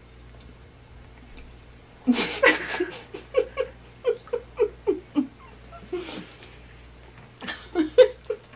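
Laughter: after a couple of seconds of quiet, a loud burst of laughing gives way to a run of short 'ha' bursts, each falling in pitch, about three a second. Another round comes near the end.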